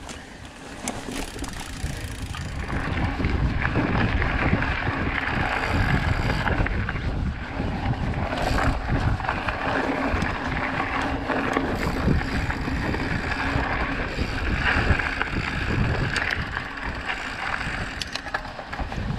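Ride noise from a Trek Procaliber 9.6 mountain bike on a dirt trail: wind rumbling on the action camera's microphone, the tyres rolling over the dirt, and scattered small clicks and rattles from the bike. It gets louder about two seconds in as the bike picks up speed onto the open track.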